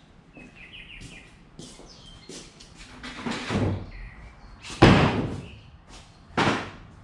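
Heavy wooden tabletop being tipped up on its wooden trestle base: a scraping slide about three seconds in, then a loud wooden thump near five seconds and a second knock about a second and a half later.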